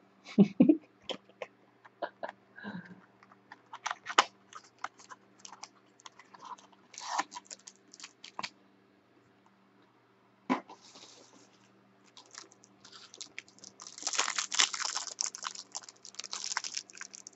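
Trading-card packs and their cardboard box being handled, with a few knocks and taps. In the last few seconds a card pack's wrapper is torn open, crinkling steadily.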